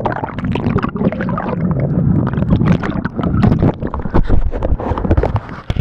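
Water splashing and gurgling around a canoe, with rumbling and knocking on the microphone, as the canoe strikes a rock and the accident unfolds.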